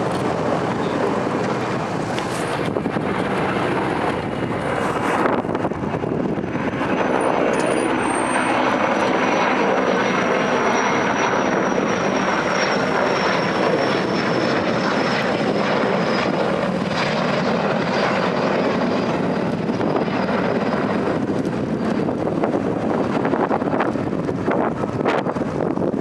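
Erickson S-64 Air Crane heavy-lift helicopter running steadily, its twin turbine engines and rotor giving a constant loud rush. A faint high whine slowly falls in pitch through the middle.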